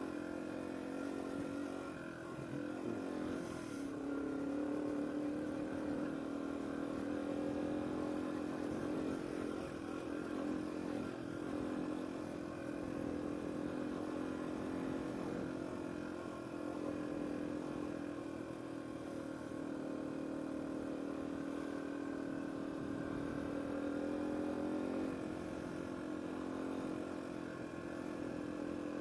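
Yamaha TW200's single-cylinder four-stroke engine running at a steady, light throttle as the bike is ridden along a dirt track, its note shifting only slightly in pitch.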